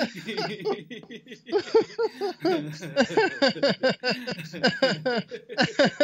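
Two men laughing on purpose in rhythmic ha-ha pulses, with a short lull about a second in. This is a laughter-yoga 'gear shift' exercise, shifting down from third to second gear, so the laughter is easing in intensity.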